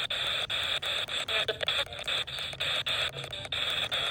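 Radio static: hiss from a weakly received FM broadcast, chopped by rapid, brief dropouts several times a second.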